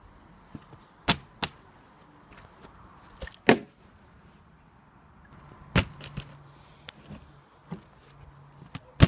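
A string of sharp knocks and thuds, the loudest near the end: a partly filled plastic water bottle being handled, flipped and landing on a wooden deck and wicker table.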